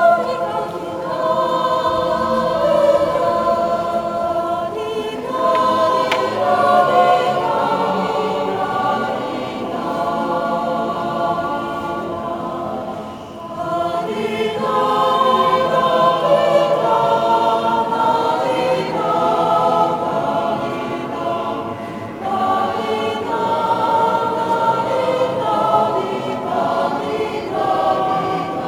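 Mixed choir of men's and women's voices singing sacred choral music in a reverberant stone church, with a brief break between phrases about halfway through.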